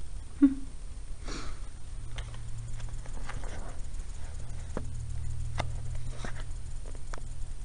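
A dog sniffing and shifting about on a wooden deck, with a few light, sharp clicks, over a low steady hum that comes in about two seconds in.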